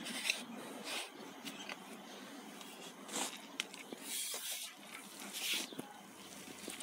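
A stick digging and scraping through moist worm compost: a handful of short rustling scrapes spread over the few seconds.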